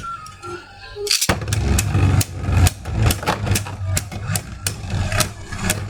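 Spinning Beyblade tops, one of them 3D-printed, clashing in a plastic stadium: rapid irregular clicks and knocks, several a second, over the rattle of the tops spinning on the stadium floor. These clashes get louder and denser from about a second in.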